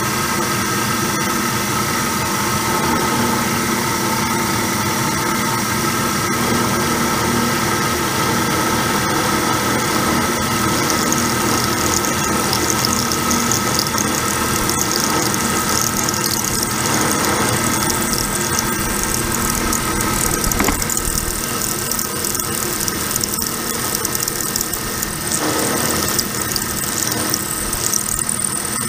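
Milling machine running while an end mill cuts a keyway into the arbor press's pinion gear shaft: a steady motor and spindle hum, with a high-pitched cutting squeal that grows stronger about a third of the way in.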